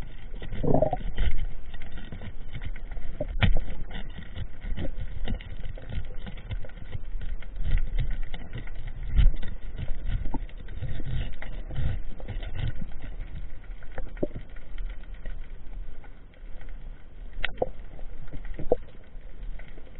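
Underwater sound heard through a diver's camera: low rumbling water movement and dull thumps, with a constant crackle of faint clicks and a few sharper clicks.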